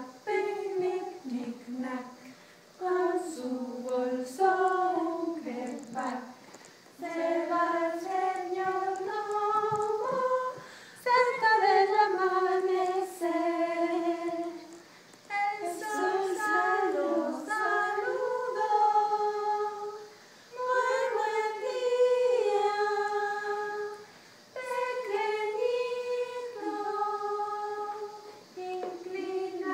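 A small group of women singing a song together without accompaniment, in phrases of a few seconds with short breaks between them.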